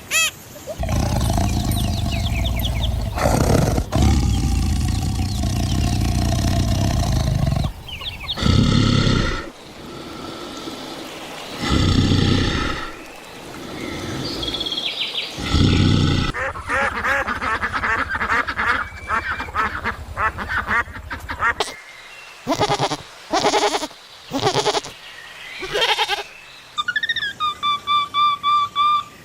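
A string of different animal calls one after another, edited together. A loud, low rumbling noise runs for the first seven seconds or so. Separate short cries follow, then a stretch of chirping, a few brief calls, and a steady whistle-like note near the end.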